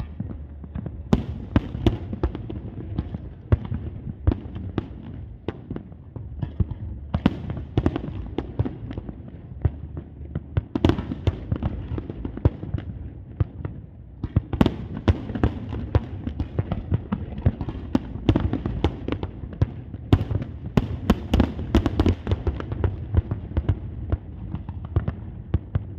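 Fireworks bursting in a continuous rapid barrage, many sharp bangs and crackles a second over a steady low rumble.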